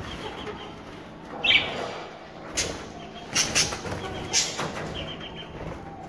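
Pet budgerigars moving about in a cage: several short, sudden bursts of movement and faint high chirps.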